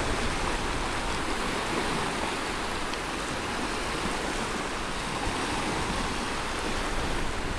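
Small wind-driven waves breaking and washing steadily onto the shore, a continuous rushing noise, with wind buffeting the microphone.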